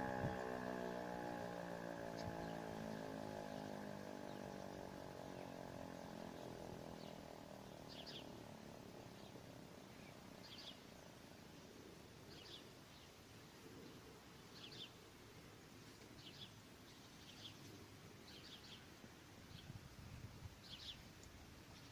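E57 electric motor siren running down after sounding the fire-alarm signal: its pitch falls and it fades away over the first few seconds. After that, short bird chirps come about every two seconds over faint outdoor background noise.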